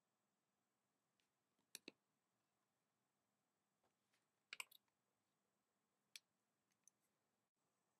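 Near silence broken by a few faint, sharp clicks from Copic markers being handled while colouring: a double click about two seconds in, a tight cluster a little past the middle, and two single clicks near the end.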